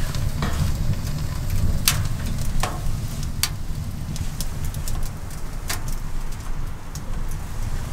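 Wood fire crackling in a freshly lit Work Tuff Stove WTS-380 tent stove, a handful of sharp pops over a steady low rumble.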